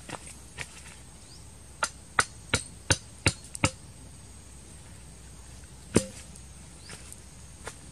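Hand blade chopping: a few light taps, then six sharp chops at about three a second, and a single loudest chop about six seconds in, some strikes leaving a short ring.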